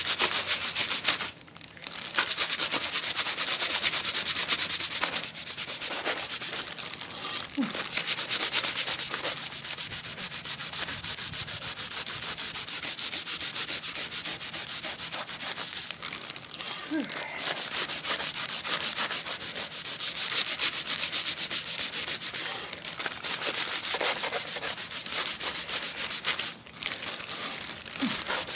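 Scotch-Brite pad scrubbing a freshly nickel-plated steel sprocket, a continuous scratchy rubbing with a few brief pauses, taking off the dull oxidation layer left by the plating bath to reveal the shine underneath.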